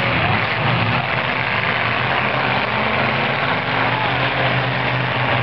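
Demolition derby cars' engines running hard around a dirt figure-eight track, a loud, steady drone with a dense wash of noise over it.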